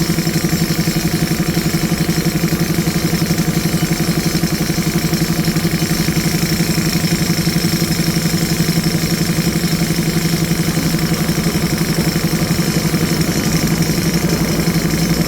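JCB 3DX Super backhoe loader's diesel engine running at a steady speed, with a fast, even pulsing beat and no change in pitch.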